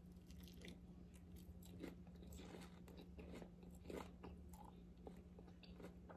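Faint chewing of a fried egg roll: scattered small crunches and wet mouth clicks with the mouth closed.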